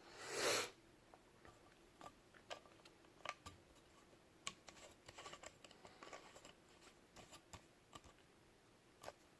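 Faint, irregular small clicks and taps of metal lock parts being handled as a pin-tumbler padlock is taken apart, its driver pins being removed. A short burst of noise at the very start is the loudest sound.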